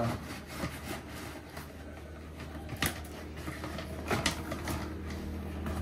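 Cardboard box and packaging rustling and scraping as a solar LED floodlight is slid out of its box, with a couple of sharp knocks about three and four seconds in.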